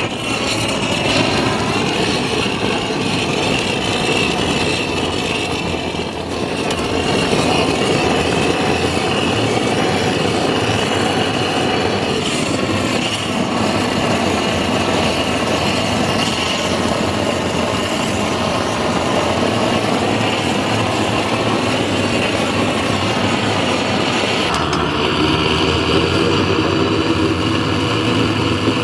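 A small engine or motor running steadily, its tone shifting about 24 seconds in.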